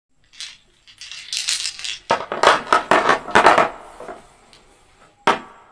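Small capped paint bottles clattering and knocking against each other as they are set down on paper over a table, loudest in a run of knocks in the middle, with one sharp click near the end.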